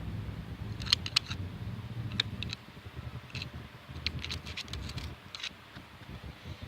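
Light metallic clicks and taps, a dozen or so at irregular intervals, as a screwdriver is poked down the head-bolt holes of an engine block's deck. A low hum runs under the first couple of seconds and then fades.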